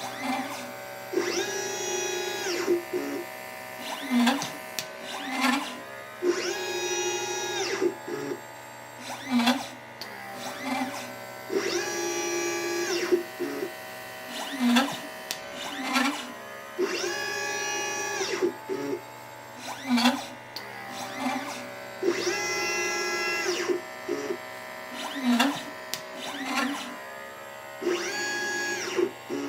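LitePlacer pick-and-place machine placing capacitors and resistors: its stepper motors whine steadily through each gantry move, with shorter whines and sharp clicks between moves. The cycle repeats about every five seconds, about five times.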